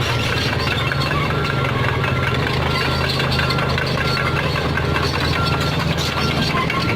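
Komatsu PC45 mini excavator's diesel engine running steadily under work, with a short high beep repeating evenly a little under twice a second.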